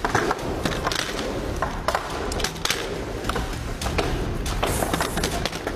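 Metal rifle parts being handled on tabletops: an uneven run of sharp clicks and clacks as parts are pulled apart and set down, over steady room noise.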